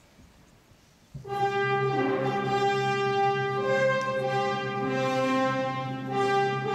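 Orchestral background music with long held notes, coming in about a second in after a faint hush.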